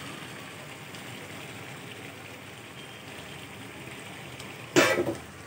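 Chicken pieces and masala gravy frying in an aluminium kadai: a steady sizzle as the meat is sautéed in the spiced potato gravy. A sudden loud noise, about half a second long, cuts in near the end.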